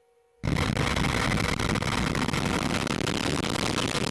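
Vega-C rocket's P120C solid-fuel first stage igniting and lifting off: a loud, dense rocket roar full of crackle that starts suddenly about half a second in and holds steady.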